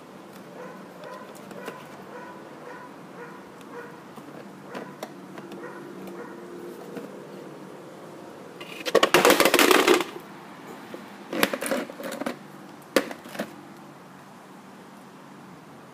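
Clear plastic dust canister of a bagless vacuum cleaner being handled and pulled off: a loud plastic rattle lasting about a second, then a few shorter clatters.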